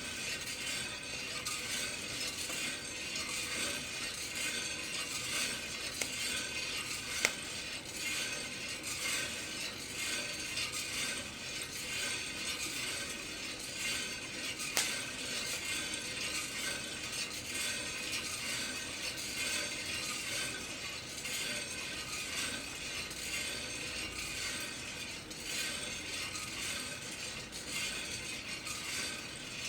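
Kaldi rotating-drum coffee roaster turning steadily, its drum ticking and rattling as the green beans tumble inside. Two sharp clicks stand out, about a quarter and about halfway through.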